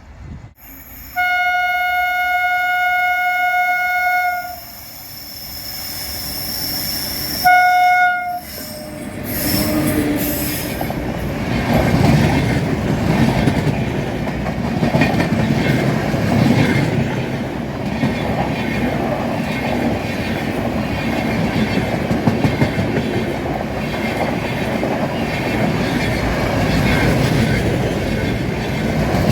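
WAP-7 electric locomotive's air horn sounding one long single-note blast of about three seconds, then a short blast a few seconds later. The locomotive and its passenger coaches then run past close by in a steady loud rumble, wheels clattering rhythmically over the rail joints.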